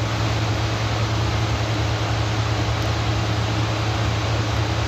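Steady mechanical drone: a low hum with an even hiss over it, holding level throughout.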